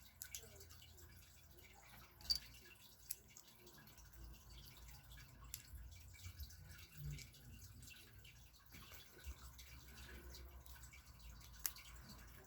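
Faint, scattered clicks of small plastic LEGO pieces being handled and pressed together, over quiet room tone; the sharpest clicks come about two seconds in and near the end.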